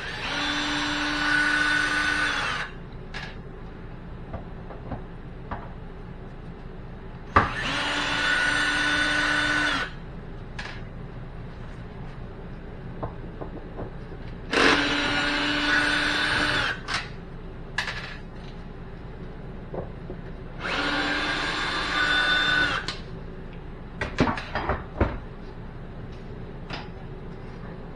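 Ryobi cordless drill-driver backing screws out of a stove's sheet-metal cooktop: four separate runs of about two seconds each, a steady motor whine, with light clicks and knocks of handling between them and a few sharper clicks near the end.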